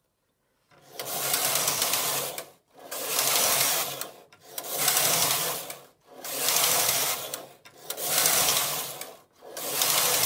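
LC2 lace carriage on a Silver Reed punchcard knitting machine being pushed back and forth across the metal needle bed, six passes of about one and a half seconds each with a brief stop between, a rasping slide and clatter of needles. With the yarn taken out, these are transfer rows: the carriage moves stitches onto neighbouring needles to make the lace holes.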